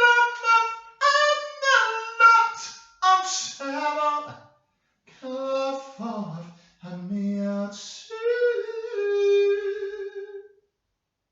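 A single voice singing or chanting unaccompanied, high-pitched, in short phrases with gliding and held notes. The last note is held long, about 8.5 to 10.5 seconds in, and then it stops.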